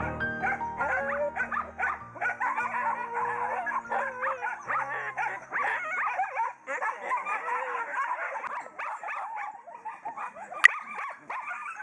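Many dogs packed into wire cages crying together: a dense chorus of overlapping, wavering high-pitched cries from dogs held for the meat trade. Piano music fades out in the first few seconds, and there is a single sharp click near the end.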